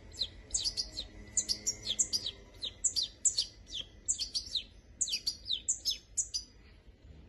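Juvenile European goldfinch chirping: a fast run of short, high, falling chirps that stops shortly before the end. These are a fledgling's begging calls as it is offered food.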